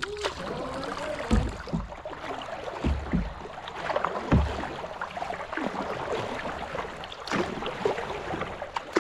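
Water rushing and splashing against the hull of a small boat under way on a river, with a few low thumps.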